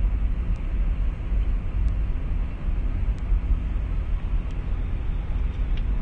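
Car cabin noise while driving: a steady low rumble of engine and tyres on the road, with a few faint ticks.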